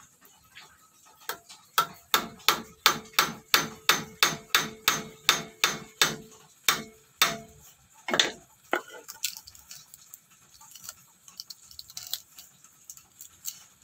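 A ball-peen hammer strikes the spine of a thin spring-steel knife blade, driving its edge through a nail on an anvil in a hardness test. The strikes ring sharply, about three a second for some six seconds, then come a couple of heavier knocks and a few light clicks.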